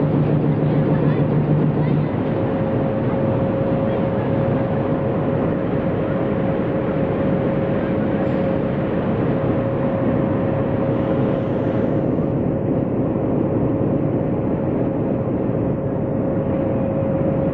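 Steady running noise of a passenger train, with a constant high whine and a lower hum that stops about two seconds in.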